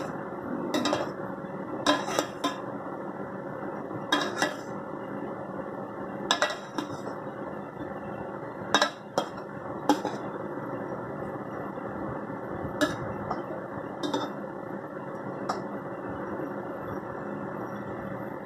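Metal spoon clinking and scraping against the side of a large metal cooking pot while gently mixing cooked sweet rice. Irregular sharp clinks every second or two over a steady background hiss.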